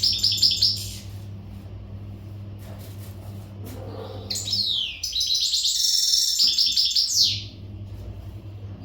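Male European goldfinch singing its breeding-readiness song: a phrase of rapid twittering notes at the start, then after a pause of a few seconds a longer, louder run of fast trills and buzzy notes.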